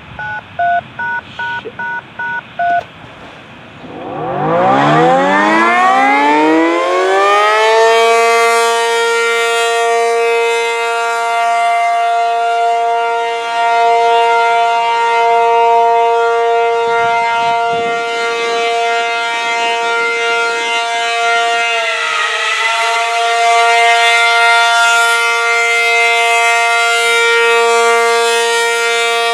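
A quick string of touch-tone (DTMF) beeps, then an ACA P-50 outdoor warning siren winds up from low to high pitch over about four seconds and holds a steady alert tone, with a brief dip in pitch about two-thirds of the way through.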